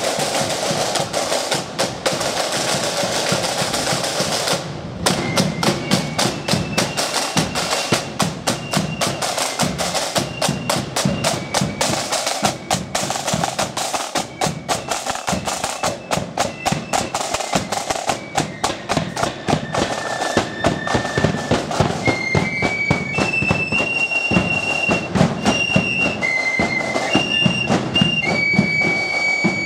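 Marching flute band: side drums play a roll for the first few seconds, then beat a march rhythm, while flutes play a high melody that grows clearer in the second half.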